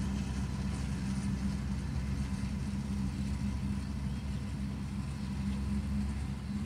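Steady low mechanical hum, like a motor running, unchanging throughout.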